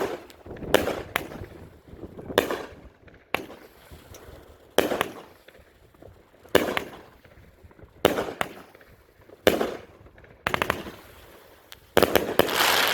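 500-gram multi-shot fireworks cake firing shot after shot: sharp launch thumps and aerial reports spaced a second or two apart, then a rapid string of shots close together near the end.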